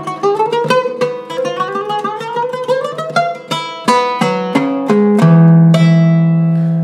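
Iraqi Zaryab oud with a cedar top, played with a plectrum: a run of quick plucked notes climbing in pitch, then a few separate strokes. About five seconds in, a low note is struck and left ringing, slowly fading.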